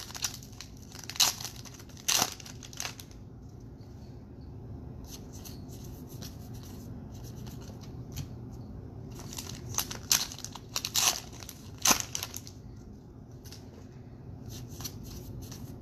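Baseball cards and pack wrappers being handled: sharp flicks and rustles in two clusters, one in the first three seconds and another around ten to twelve seconds in, over a steady low hum.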